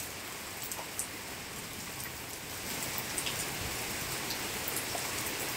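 Steady rain falling on the yard and street, an even hiss with a few faint ticks of nearby drops.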